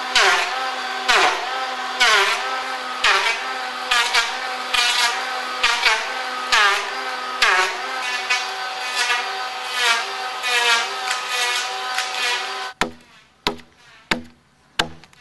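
Handheld electric power tool cutting into a large hardwood timber block: a steady high motor whine with a rasping stroke about once a second, each bite into the wood pulling the motor's pitch down before it recovers, with the strokes coming a little faster later on. The tool stops abruptly near the end, leaving a few faint clicks.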